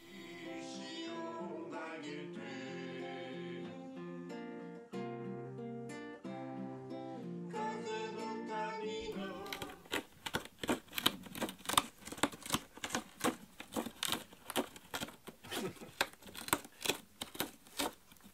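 A man singing to a strummed acoustic guitar, cutting off after about nine seconds. Then a cat scratching a round corrugated-cardboard scratcher, its claws raking the cardboard in quick strokes, a few a second.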